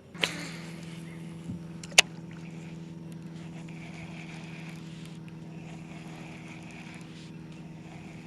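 A small electric motor on the boat, most likely the trolling motor, switches on with a click and then hums steadily at one pitch. There is a sharp click about two seconds in.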